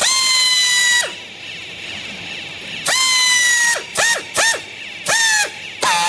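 Handheld power strapping tool tensioning green plastic strap around a compressed bale of used clothes: its motor whines in bursts, one about a second long at the start, another near the middle, then three shorter ones, the pitch dropping as each burst stops.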